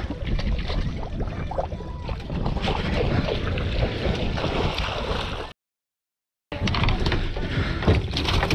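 Wind buffeting the microphone over water splashing and thrashing as a hooked bluefin tuna is gaffed at the boatside and hauled aboard, with scattered knocks and clicks. The sound cuts out completely for about a second just after the middle.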